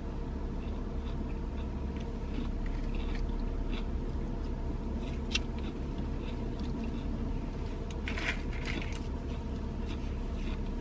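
Steady low hum in a car's cabin, with a few faint crinkles and clicks from a plastic sauce packet being handled and worked at to open it.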